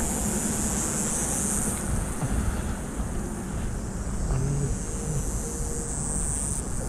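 Car driving on the road: a steady rumble with a high hiss of road and tyre noise.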